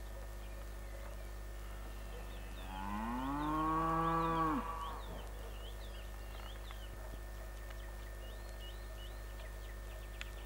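A cow mooing once: one long call that rises in pitch at its start and stops about four and a half seconds in. Small birds chirp around it.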